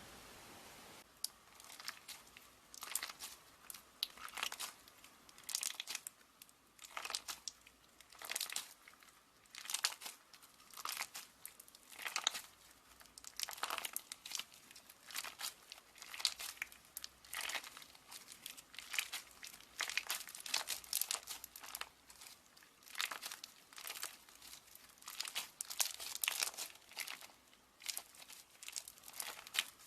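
Slime being squeezed and kneaded by hand, giving short crinkly, crackling bursts about once a second.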